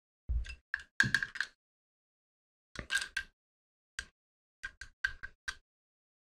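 Small metal parts of an airsoft gas-blowback pistol being handled: about a dozen sharp clicks and taps in small groups, each with the same short ringing note.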